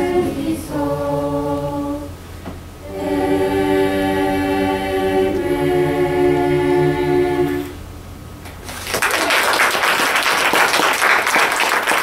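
Mixed student choir singing unaccompanied in long held chords, with a short break about two seconds in and a final chord held until about eight seconds in; then the audience applauds.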